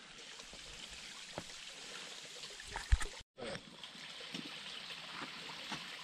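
Small creek water trickling over rock, a steady hiss. A sharp knock a little before halfway is the loudest sound, and the sound drops out completely for a moment just after it.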